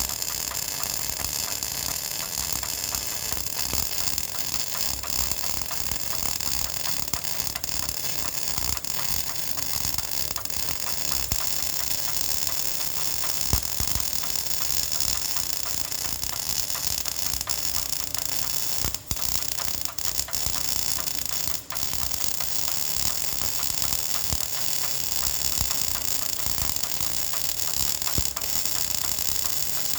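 Welding arc burning steadily with a dense hiss and crackle. It drops away for a moment twice, near the middle.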